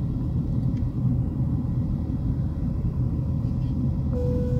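Steady low roar inside the cabin of a Boeing 737-800 in flight, from its CFM56 turbofan engines and the airflow over the fuselage. A short steady tone sounds briefly near the end.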